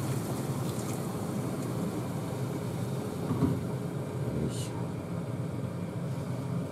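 Induction cooktop running under a pot of vegetables in water, a steady low hum. A light click about three and a half seconds in and a short hiss a second later.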